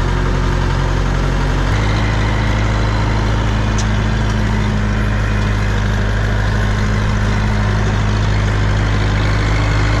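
Compact tractor's diesel engine running steadily, its engine speed stepping up slightly about two seconds in and then holding.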